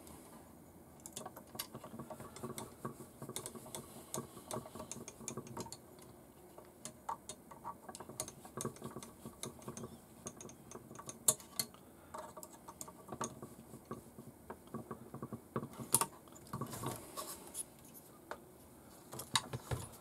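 Hex driver turning small screws into the chassis of an RC 4x4 crawler kit: irregular light clicks and scrapes of metal on metal, with a few sharper clicks about eleven and sixteen seconds in.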